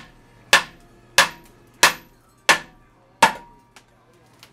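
A hammer striking the steel steering knuckle of a Geo Tracker's front suspension five times, about one and a half blows a second. Each blow is a sharp metallic clank with a brief ring. The blows are knocking the tie rod end's tapered stud loose from the knuckle, which is done here instead of using a pickle fork.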